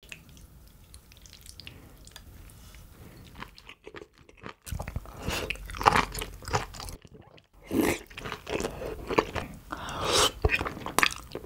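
A person chewing and biting food close to the microphone: wet, clicking mouth sounds, faint at first and much louder from about five seconds in, broken by two short gaps.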